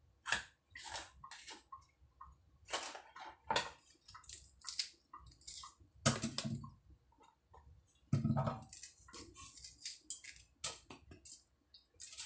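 Kitchen knife cutting tomato on a plastic cutting board, with irregular taps and scrapes, and two heavier thumps about six and eight seconds in.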